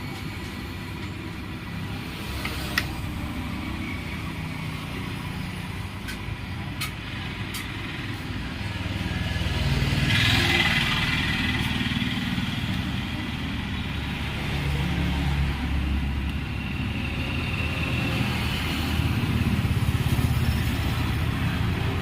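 Steady low rumble of motor-vehicle engines, swelling louder twice as vehicles pass, with a few light clicks of bolts and small metal parts being handled.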